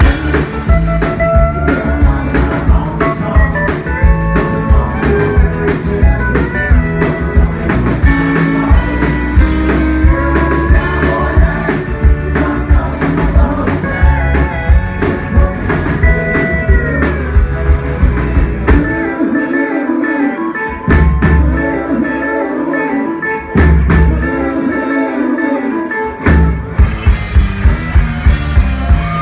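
A live band plays a song with a guitar lead line over drums and bass. The bass and low drums drop out twice, briefly, about two-thirds of the way through.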